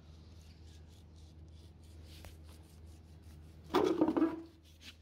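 A steel kitchen knife scraping and cutting along a cow's trotter in short, light strokes. Near the end, a much louder sound of under a second cuts in.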